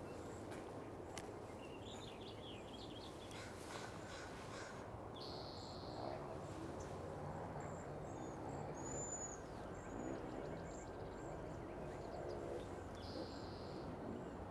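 Several wild birds calling faintly in a marsh: scattered high thin whistles and chirps, and a buzzy trill heard twice, over low outdoor background noise.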